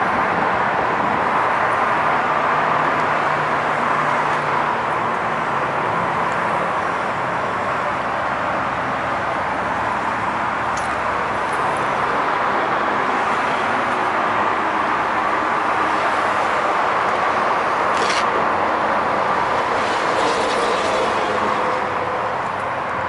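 Steady road traffic noise, an even roar of passing vehicles, with a couple of brief faint ticks.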